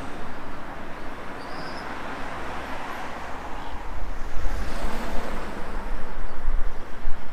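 Outdoor ambience with wind rumbling on the microphone, gusting more strongly in the second half.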